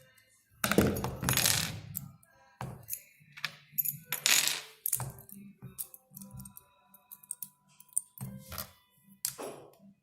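Small metal parts and tools clinking and clattering on a work surface in an irregular string of sharp clicks and short rattles, as a stitcher's sewing head is taken apart by hand.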